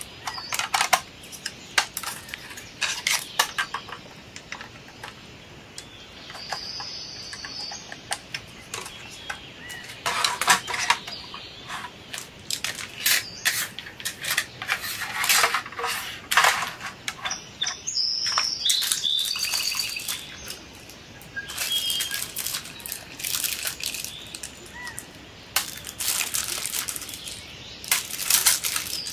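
Hard plastic playset pieces being handled and pressed together: irregular clicks, taps and knocks of plastic parts, with a few longer stretches of rustling.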